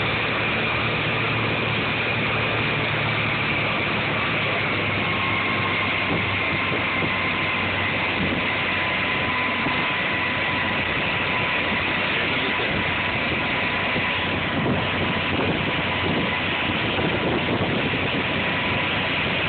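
Motorboat engine running at speed while towing a tube, a steady whine over the constant rush of the churning wake.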